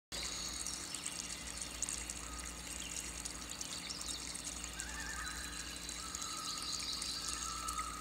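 Small stream trickling and splashing down a mossy rock cascade, a steady flow of water.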